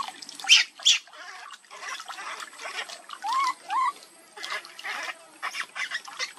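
Newborn macaque crying with two short rising squeals a little past three seconds in, while water is splashed and poured over it as it is held and washed in shallow water; the loudest moments are two sharp splashes about half a second and a second in.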